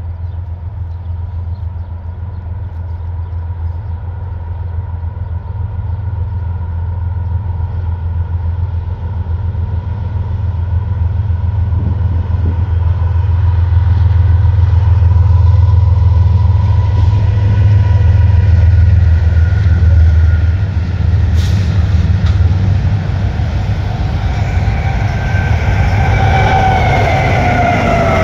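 Diesel locomotives of Norfolk Southern and CSX intermodal freight trains approaching and passing: a deep engine rumble builds louder, and near the end a high whine falls in pitch as the CSX locomotives pass close.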